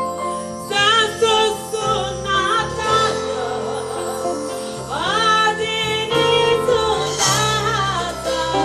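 Live gospel music: a woman singing a line with vocal runs over a steady band accompaniment with bass.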